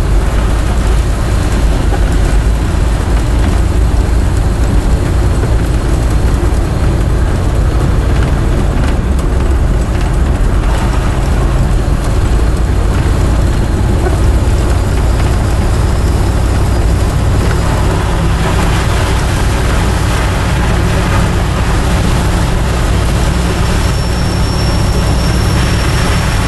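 Dodge Power Wagon's 360 cubic-inch V8 running on wood gas from an onboard gasifier, heard from inside the cab while driving, with road noise. The engine note rises about eighteen seconds in.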